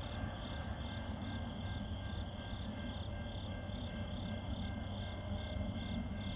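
Diesel freight locomotives, a CN SD70M-2 and an IC SD70 with EMD two-stroke engines, rumbling low and steady as the train moves slowly with its headlight on. A high tone pulses evenly alongside.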